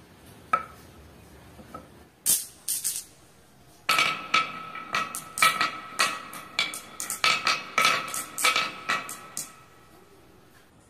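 Marbles rolling down a wavy wooden marble slope, clacking sharply against one another, the wood and a plastic toy figure as they pile up in the groove. A single click comes near the start and a few clacks about two seconds in, then a quick, dense run of clacks from about four seconds to nine and a half.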